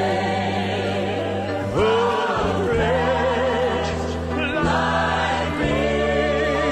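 Background music: a choir singing long held notes with vibrato over sustained chords, changing notes every second or two.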